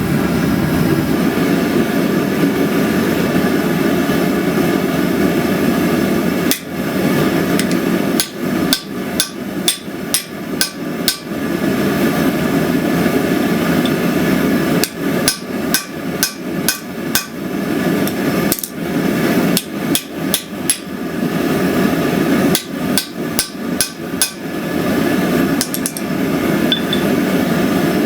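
Hammer blows on hot Damascus steel, irregular strikes in quick runs with short pauses, starting about six seconds in, over the steady roar of the lit forge.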